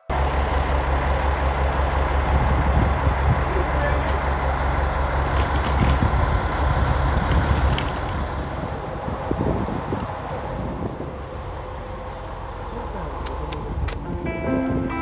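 Diesel engine of the Aru Ressha sightseeing railcar idling at the platform, a steady low hum that eases off about eight seconds in. A few sharp clicks near the end.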